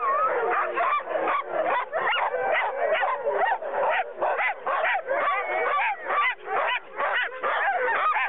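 Sled dogs tethered on the gang line barking and yelping over one another, a dense unbroken din of several dogs at once, as a team does while waiting to be hooked up and run.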